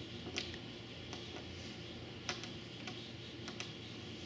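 Scattered small, sharp ticks of a fine-pointed knife tip picking the centres out of rivet decals on a model aircraft's wing skin, the sharpest about half a second in and just after two seconds, over a low steady hum.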